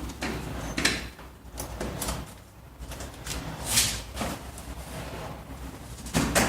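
Several short scraping, sliding noises with pauses between them, from handling heating pipe and fittings at a boiler distribution manifold.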